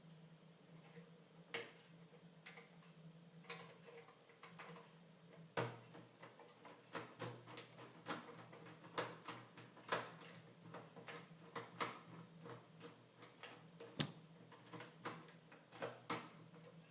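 Scattered light clicks and taps of PlayStation 3 parts being handled and fitted (cables, connectors, the metal case), at irregular intervals, with two sharper knocks about five and a half and fourteen seconds in. A faint steady hum lies underneath.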